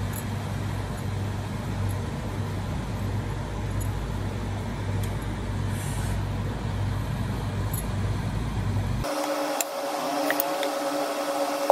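A steady low mechanical hum over a background hiss, with a few faint clicks. About nine seconds in, the hum cuts off abruptly and a thinner hiss with a faint steady tone takes over.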